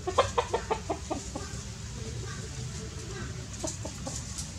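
A quick run of about eight short clucking calls in the first second and a half, then two fainter ones later, over a low steady background hum.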